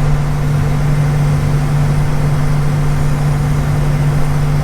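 John Deere S780 combine's diesel engine running at a steady speed, with a constant low hum and no change in pitch.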